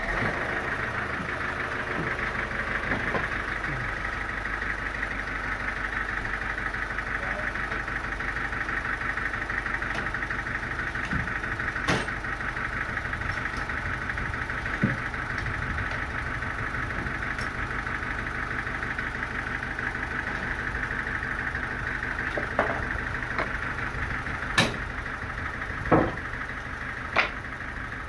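A sawmill's engine-driven machinery running steadily at a constant speed. Several sharp knocks sound through it, the loudest about two-thirds of the way in and near the end.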